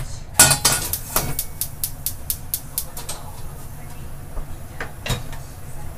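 Black iron wok set down on a gas stove's cast grate with a knock, followed by a quick run of light clicks, about four or five a second, that die away after a couple of seconds, and another single knock near the end.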